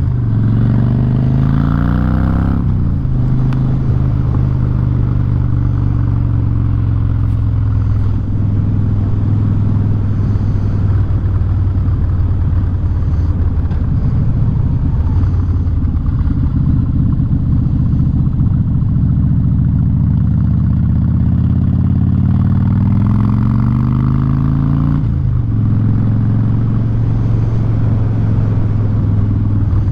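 Harley-Davidson V-twin through a loud Vance & Hines aftermarket exhaust, ridden on the road. It pulls up in pitch at the start and drops sharply about two and a half seconds in, as at a gear change. It then runs at a steady cruise, climbs again from about two-thirds of the way through, and drops sharply once more before settling back to a steady run.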